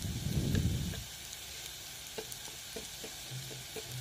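Sliced onions, green chillies and curry leaves frying in oil in a kadai: a steady sizzle with scattered small pops. There is a brief low rumble in the first second.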